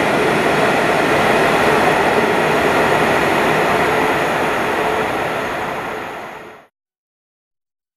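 Departing sleeper train rolling away along the underground platform into the rock tunnel: a loud, steady rush of wheels on rail. It fades quickly and cuts to silence about six and a half seconds in.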